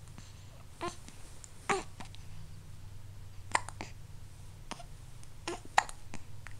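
Hiccups: about six short, sharp hics at uneven intervals, over a faint steady low hum.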